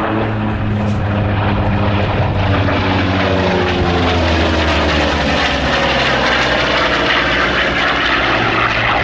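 Hawker Fury's piston engine and propeller running at display power as the fighter flies past overhead, the engine note bending in pitch as it passes about midway through.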